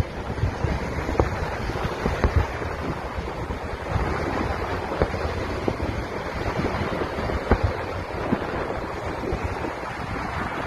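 Fireworks display: a steady rumble of many distant bursts, with short sharp pops and cracks scattered through it.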